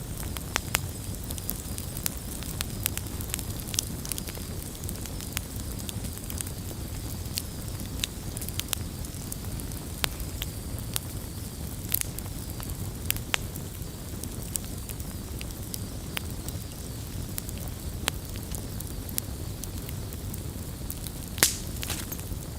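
Wood campfire burning: logs crackling with frequent sharp pops over a low steady rumble, with one louder pop near the end.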